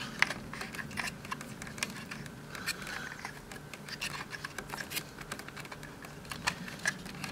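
Light, irregular plastic clicks and rattles from wiring-harness connectors and cables being handled and tucked into place by hand.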